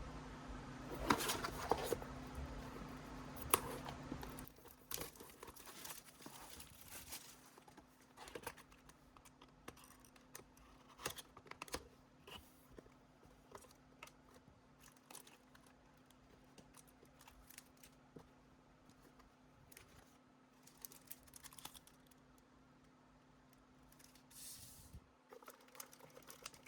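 Shrink-wrapped card booster box being opened: plastic wrap cut and torn, packaging crinkling, with scattered taps and clicks. A low hum sits underneath and is louder in the first four seconds.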